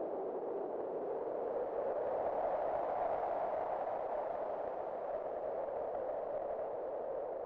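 Wind blowing with a steady, hollow rushing tone that swells about three seconds in and then slowly eases off.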